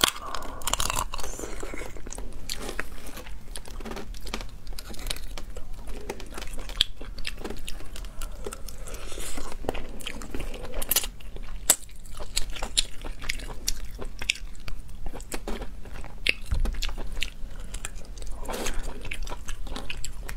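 Close-miked chewing and crunching of spicy boiled crayfish, with many short, sharp crackles of shell being bitten and pulled apart by hand.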